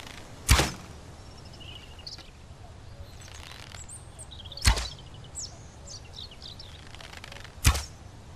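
Three bow-and-arrow shots, each a sharp thwack with a brief ring after it, about four and then three seconds apart. Birds chirp faintly between the shots.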